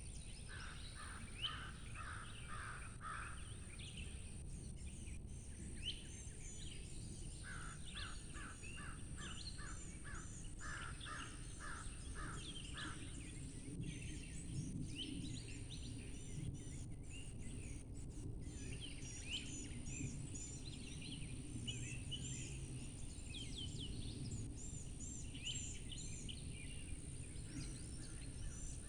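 Several birds singing and calling: continual high chirps and whistles, with two runs of quick repeated notes in the first half, over a steady low background rumble and a thin, steady high whine.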